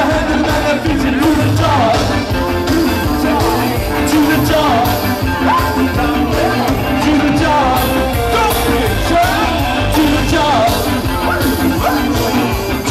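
Ska band playing live, loud, with bass, drums and a sung lead vocal.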